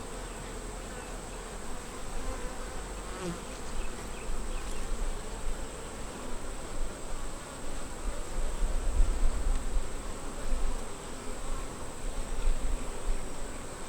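Many honey bees buzzing in a steady hum over an open hive, with a low rumble on the microphone partway through.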